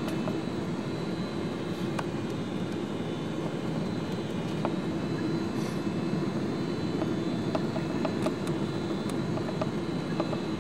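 Steady cabin noise inside a Boeing 777 airliner in flight: a constant rush of engines and airflow with a low hum, and a few faint clicks and rattles.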